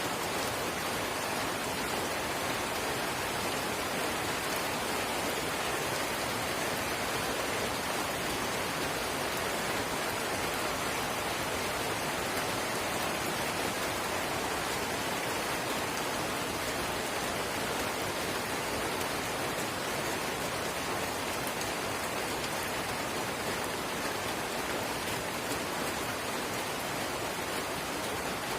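Steady drizzle pattering on surfaces, an even hiss of rain with no distinct drops standing out.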